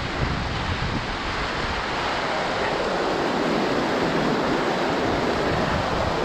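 Whitewater rapids of a river rushing over rocks, a steady loud wash of water noise.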